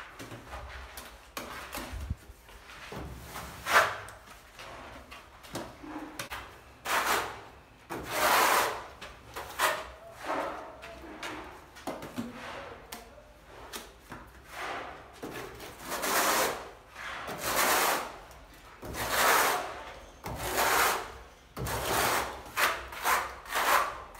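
Steel notched trowel spreading and combing tile adhesive onto a rendered wall: a long series of rasping scraping strokes, each about a second long, with a sharp knock about four seconds in.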